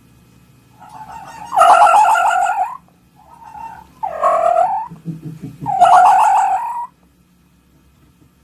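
A fox calling three times, each call loud, pitched and about a second long, with softer shorter calls just before the first two.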